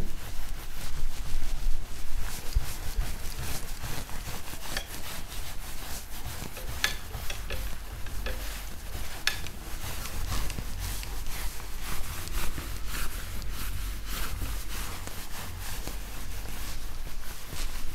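Whiteboard being wiped clean: irregular rubbing and scrubbing strokes of the eraser across the board surface, over a steady low hum.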